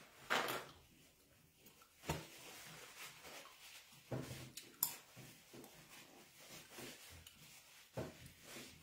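A paper towel torn off the roll about half a second in, then the paper rustling as hands are wiped with it, with a few sharp clicks along the way.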